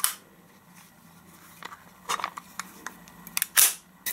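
A handful of sharp metal clicks and snaps from the all-metal Umarex Luger P08 gas blowback BB pistol as it is reassembled and handled, with the loudest, longer click about three and a half seconds in.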